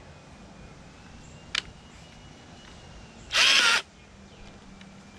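A screw gun runs in one short burst of about half a second, backing a screw out of a microwave oven's casing; a sharp click comes shortly before it.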